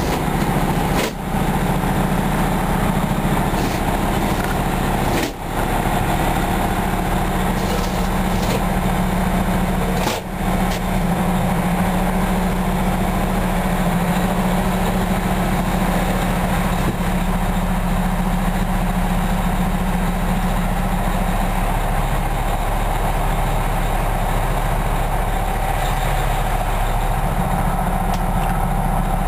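Diesel engine of a 2008 Pierce Arrow XT fire pumper running at low speed, heard from inside the cab as a steady low hum, with three brief drops in level in the first ten seconds.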